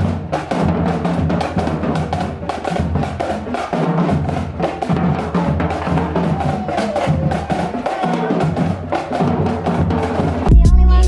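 Background music driven by a drum kit, with a steady beat of kick and snare; a heavier, louder bass section comes in near the end.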